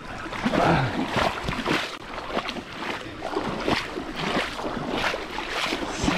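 Irregular splashing and rustling while a hooked salmon is reeled in to the riverbank.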